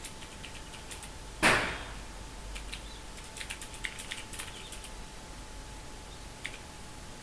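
Ducky Mecha mechanical keyboard keys clicking in irregular runs of keystrokes. About a second and a half in there is one loud, short whoosh.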